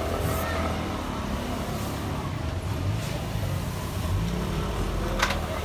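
Steady low rumble and hum of a busy street, with no voices standing out, and one sharp click about five seconds in.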